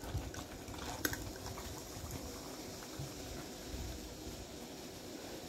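Carbonated soda fizzing and sloshing faintly in a plastic bottle of Mountain Dew Zero as it is held and tilted, with a light click from the bottle about a second in.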